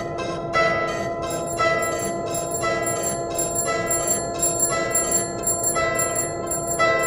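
Japanese level-crossing warning bell ringing in a steady repeated clang, about two strikes a second, with a higher, brighter ringing layer joining about a second and a half in.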